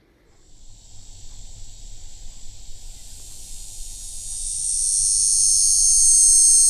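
Cicada song played from a recording: a high, shrill buzz that swells up over the first few seconds and then holds steady.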